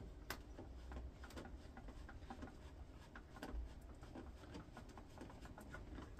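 Hand screwdriver undoing a screw in a plastic casing: faint, irregular small clicks and ticks as the driver turns and the grip shifts.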